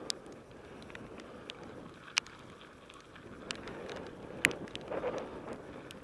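Mountain bike ridden fast along a gravel trail: tyres rolling over loose stones with wind on the microphone, and sharp knocks and rattles from the bike over bumps, the loudest about two seconds and four and a half seconds in.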